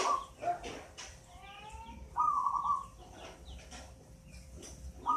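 Zebra dove (perkutut), an 8-month-old local bird, singing its pulsed coo: one phrase at the start, another about two seconds in, and a third beginning right at the end, each a quick run of beats falling slightly in pitch.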